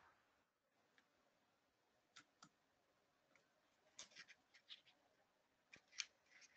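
Near silence broken by about eight faint, short clicks, scattered from about two seconds in and bunched between four and six seconds.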